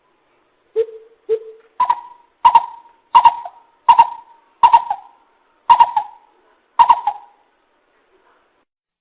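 Coucal (bìm bịp) calling: a series of about ten short deep hoots, the first few low, the rest higher and louder, spacing out toward the end. It is played as a decoy call to lure wild coucals.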